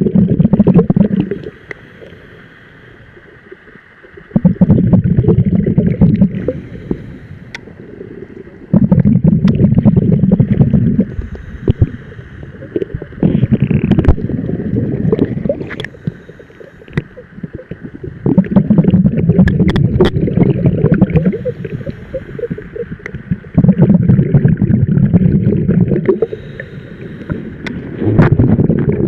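Scuba diver breathing through a regulator underwater: each exhalation sends out a rumbling burst of bubbles lasting about two seconds, roughly every four to five seconds, with quieter inhalations between. Scattered sharp clicks sound throughout.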